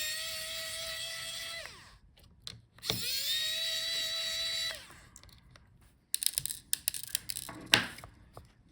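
Small electric precision screwdriver running twice, about a second and a half each time, with a steady whine that rises briefly as it spins up, backing out screws. After that come light clicks and knocks of small parts being handled.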